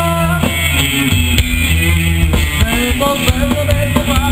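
Live rock band playing loudly: electric guitars over a bass line and a drum kit.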